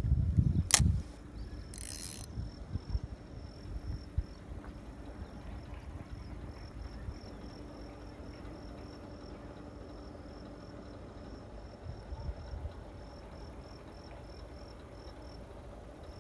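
A fishing rod being cast: a burst of handling noise and a sharp click in the first second. Then an insect chirps in a high, rapid pulsing trill that keeps on until near the end.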